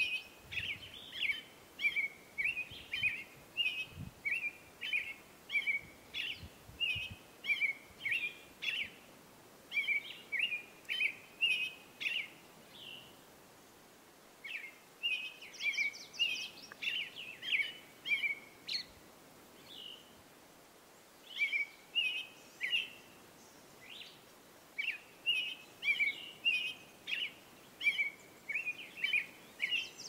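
American robin singing: a long run of short whistled caroling phrases, broken by a couple of brief pauses, with a high, rapid squeaky trill after the first pause.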